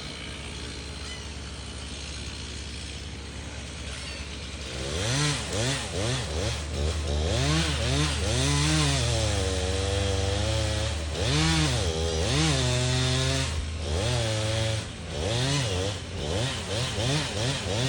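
Steady low engine hum for the first few seconds; then, about five seconds in, a chainsaw starts revving up and down again and again as it cuts timber, over the hum.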